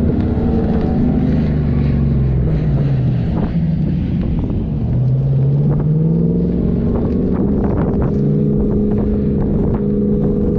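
4x4's engine driving under load, its revs dropping over the first few seconds, climbing again about halfway through and then holding steady, with scattered knocks and rattles.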